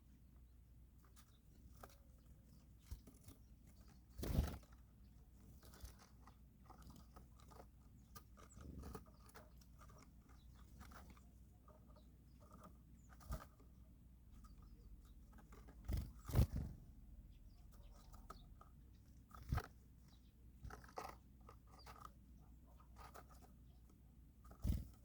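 Small birds pecking and cracking seeds at a feeder: scattered sharp taps and crunches, with a few louder knocks.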